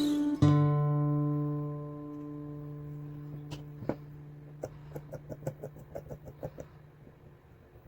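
Acoustic guitar music: a chord struck and ringing out, fading over a couple of seconds, then a run of quick, light plucked notes.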